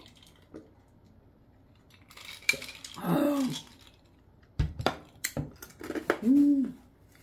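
A long spoon clinking against a tall glass of sprouted-barley water as it is drunk from, then several sharp knocks as the glass is set down on the table, followed near the end by a short hummed sigh.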